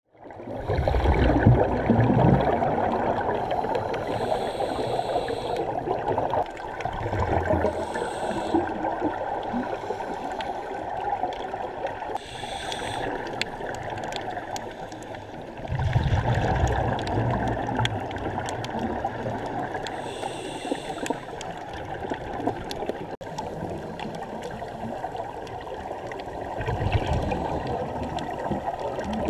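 Underwater sound heard through a camera housing: scuba regulator breathing, a hiss on each inhale and a rumbling rush of exhaled bubbles every several seconds, over a steady muffled wash of water.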